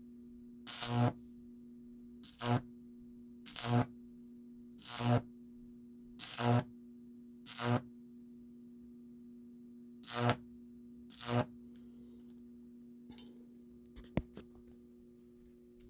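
Microwave oven transformer humming steadily while its high-voltage output arcs eight times. Each arc is a loud buzzing crackle of about half a second, coming roughly every second, with a longer pause after the sixth. A few faint clicks follow near the end.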